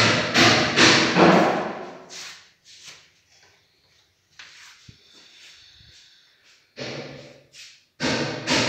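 A person's voice over the first two seconds and again near the end, with a sharp click about five seconds in from the metal latch handle of a wooden interior door.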